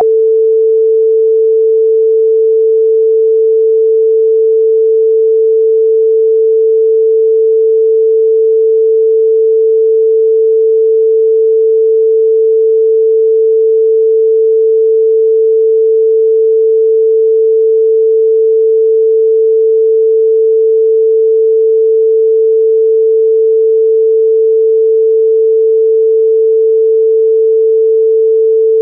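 A single pure electronic sine tone, mid-pitched, held loud and unchanging throughout: a generated Rife frequency-therapy tone.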